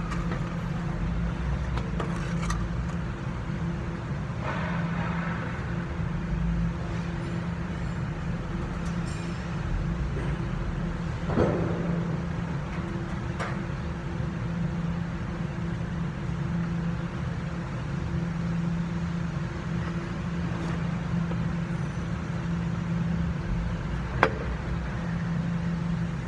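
A steady low mechanical hum, like an engine or machine running, with a few light knocks, the sharpest near the end.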